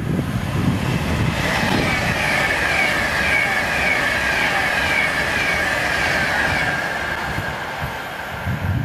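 Virgin Trains Class 390 Pendolino electric multiple unit passing at speed: steady rushing wheel-and-rail noise. About a second and a half in, a high whine comes in, wavering about twice a second, and it fades out near the end.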